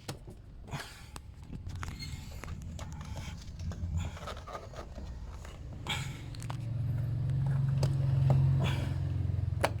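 Plastic side-skirt trim being pushed and clipped back into place on a car, with scraping and scattered clicks and knocks, under a low rumble that swells in the last few seconds.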